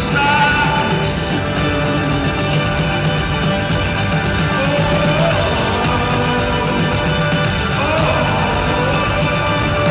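Live rock music from a band on stage, with a sung melody in long wavering notes over a steady full band.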